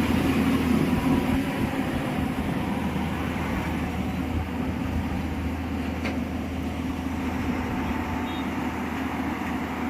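Heavy diesel machinery running steadily, a low, even engine drone under a noisy mechanical wash.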